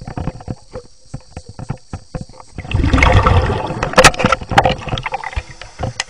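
Underwater water and handling noise: scattered clicks and knocks, then about two and a half seconds in a loud rush of churning, bubbling water with a couple of sharp knocks.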